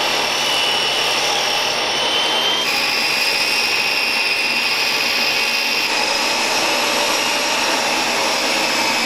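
Benchtop table saw running and ripping a 2x pine board, a steady loud whine with noise from the blade. The whine drops slightly in pitch about three seconds in as the blade takes the cut.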